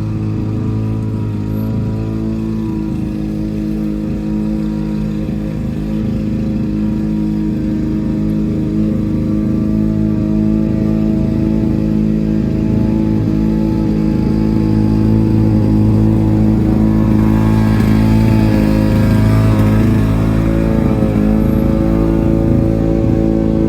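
Small lawn mower engine running steadily. About two-thirds of the way through it grows a little louder and rougher.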